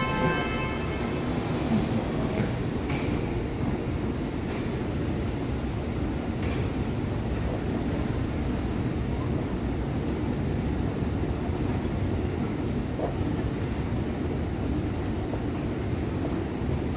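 Escalator running: a steady low mechanical rumble with a faint, constant high-pitched whine over it.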